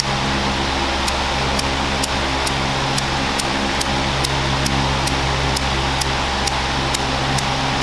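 Electric fan running steadily on its lowest setting, a constant whirring hum with a light tick repeating about twice a second.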